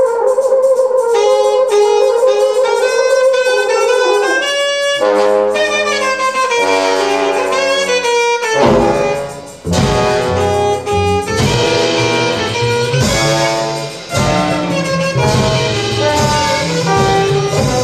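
Live jazz quartet of saxophone, trombone, double bass and drums playing. The saxophone and trombone play alone at first, and bass and drums come in with the full band about nine seconds in.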